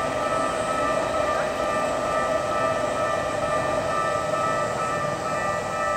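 Japanese level-crossing alarm ringing steadily in several overlapping tones over the rumble of a train on the tracks.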